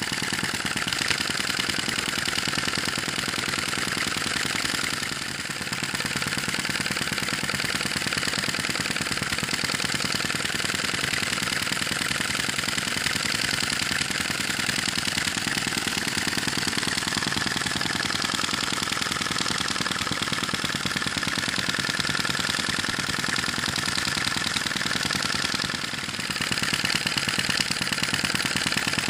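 Sai Hu V1-45 flame-licker (vacuum) model engine running steadily, hot and freshly relit, with a fast, even clacking beat.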